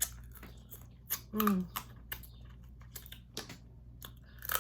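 A person drinking: scattered small clicks and mouth sounds, with a short hummed 'mm' about a second and a half in.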